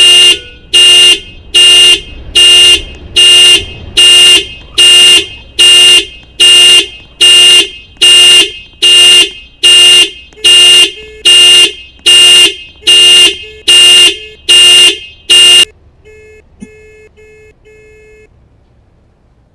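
2022 Toyota RAV4's horn sounding its panic alarm: loud, evenly spaced blasts, a little more than one a second. It stops about sixteen seconds in, and a few much fainter short tones follow.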